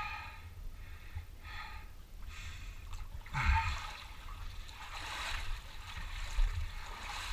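Water sloshing and splashing as a person swims through a muddy pool, with their breathing close by, in several short noisy bursts.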